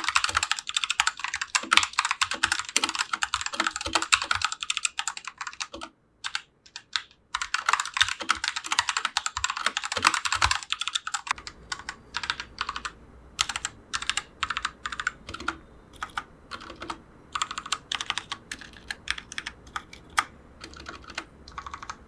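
Portronics Hydra 10 wireless mechanical keyboard with linear red switches being typed on: fast, continuous typing, a brief pause around six seconds, more fast typing, then slower, separate key presses from about eleven seconds on.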